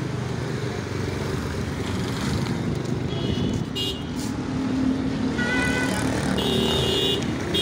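Street traffic noise of passing cars and motorcycles, with short high-pitched horn beeps about three seconds in and twice more in the second half.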